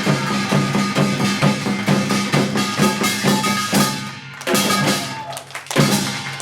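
Percussion-driven ensemble music with a fast, steady beat over sustained pitched tones. It breaks off, then closes with two final accented strokes about a second apart, the last one left to ring out.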